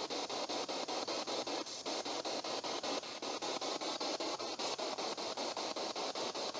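A spirit-box radio scanner sweeping through stations: a steady hiss of static chopped by quick, regular clicks at about eight a second as it jumps from channel to channel.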